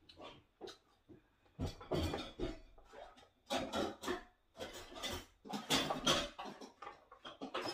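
Spoons and dishes clattering and scraping during a meal, in several short irregular bursts.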